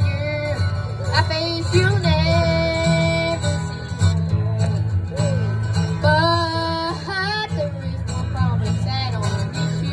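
Live acoustic guitar strummed through an instrumental break in a country tune, with a sustained, wavering melody line over the chords.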